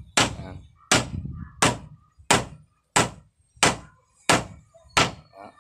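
Hammer driving a nail into a wooden frame timber: eight even strikes, about one and a half a second.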